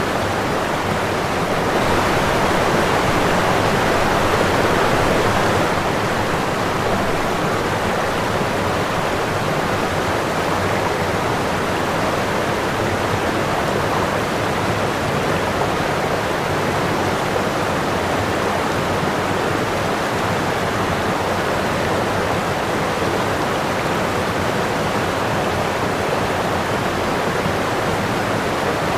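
Running water rushing steadily, swelling slightly a couple of seconds in before settling back.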